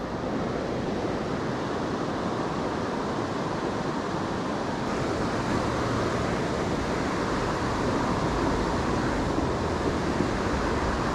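Steady rush of river water flowing fast over rocks.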